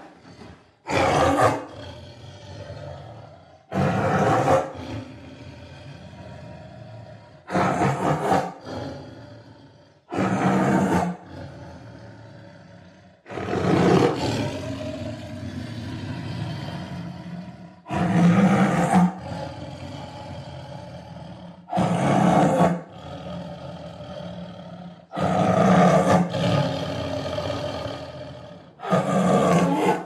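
Tigers roaring in short, loud bursts, about nine in all, every three to four seconds.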